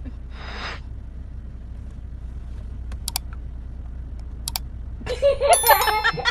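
Steady low rumble of a car heard from inside the cabin. A few sharp clicks come around the middle, and a loud high-pitched sound with several tones bends in pitch near the end.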